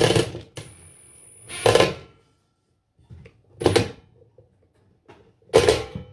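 Cordless power driver driving a screw through a plastic bracket into the timber cover, run in four short bursts about two seconds apart.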